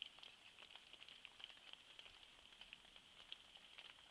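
Very faint, irregular patter of light raindrops, several small ticks a second, over a soft steady high hiss.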